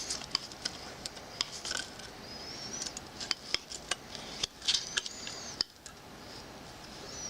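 A small vise built from Actobotics robot-kit parts being tightened by hand: irregular metallic clicks and ticks, with a few faint high squeaks as the parts turn and slide.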